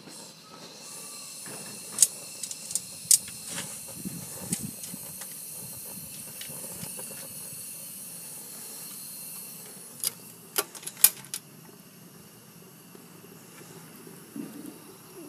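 Gas burner of a stationary Stirling hot-air engine hissing steadily in its open combustion chamber, then becoming fainter after about nine seconds. Several sharp metallic clicks come in the middle, the latest as the stainless-steel chamber door is shut.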